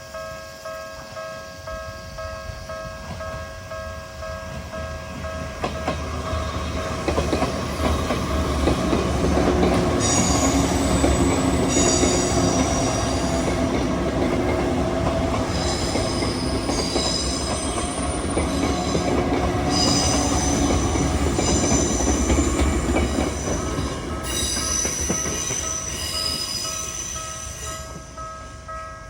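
Japanese level-crossing warning bell ringing in a steady pulsing rhythm. About six seconds in, a train on the Izu Kyuko Line arrives and runs over the crossing with a loud rumble and high-pitched wheel squeal. The train sound fades near the end while the bell keeps ringing.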